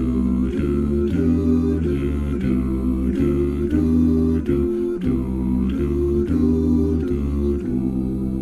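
An a cappella vocal group singing a rhythmic passage without words, its chords changing about twice a second over a deep sung bass line.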